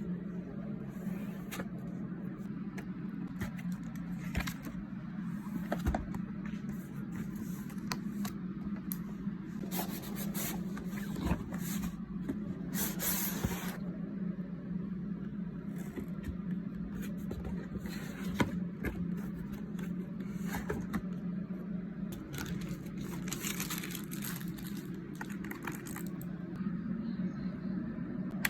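Keyboard packaging being handled and opened: cardboard and plastic scraping, rustling and tearing, with scattered clicks and knocks, over a steady low hum.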